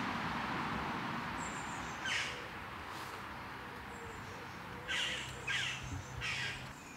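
A crow cawing four times: once about two seconds in, then three calls close together near the end, over a faint steady rush of stream water.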